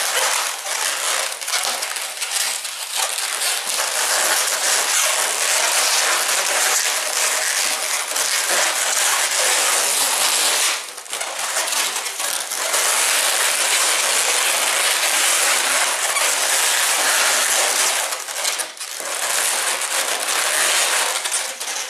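Inflated latex modelling balloons squeaking and rubbing against each other as they are twisted and wrapped into an ear twist. A dense, continuous rubbing noise that lets up briefly about halfway through and again near the end.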